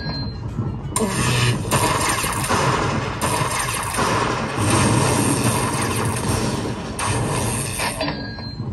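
Slot machine bonus payout sound effects: electric crackling and rumbling lightning zaps, one after another, each starting suddenly, as coin values are added to the climbing win total.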